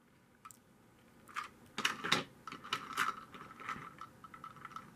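Plastic toy train coaches being handled and set down on a wooden surface: a run of light clicks and knocks, starting a little over a second in.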